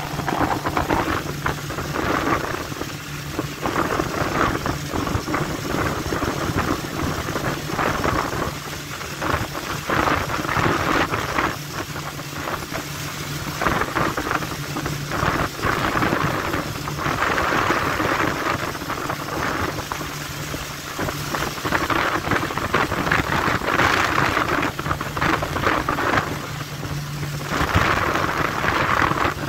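Motorboat under way: a low engine hum under a loud rush of wind and water, which swells and eases every few seconds.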